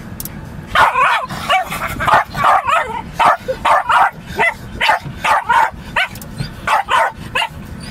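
Lakeland terrier barking in a rapid string, about two or three barks a second, starting about a second in, at the moving windscreen wipers.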